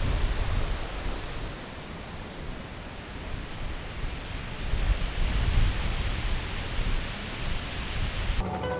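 Rushing mountain river water, a steady hiss, with wind buffeting the microphone in low gusts. Music cuts in just before the end.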